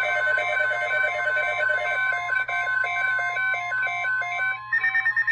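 Electronic emergency alert tones: a fast run of alternating beeping tones, changing about four and a half seconds in to a quicker warbling ring, the kind of alert signal played between weather warning announcements.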